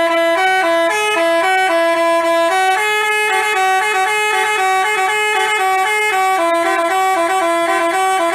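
Basuri telolet multi-tone bus horn playing a quick tune, its notes changing several times a second without a break.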